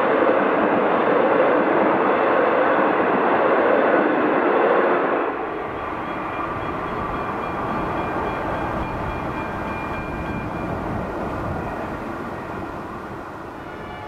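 V/Line passenger carriages rolling past close by at speed, a loud, dense rumble of wheels on rail. About five seconds in, the sound drops sharply to a quieter, more distant train running away, with faint steady whining tones, fading slowly.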